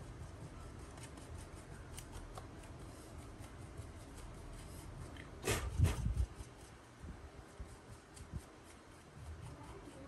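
Small stiff brush scrubbing dust off the plastic blades of an HP Victus 16 laptop's cooling fan, the bristles rubbing and flicking over the blades in light ticks. A louder rubbing scrape for about a second halfway through.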